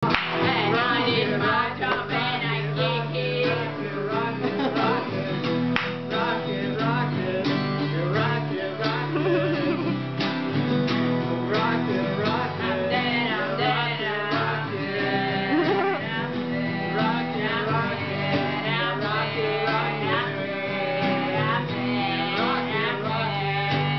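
Two acoustic guitars strummed together while a small group sings along, making up lyrics as they go.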